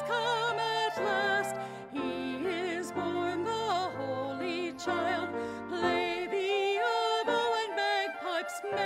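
A woman singing a Christmas carol solo with a wide vibrato, over a sustained instrumental accompaniment of held low notes.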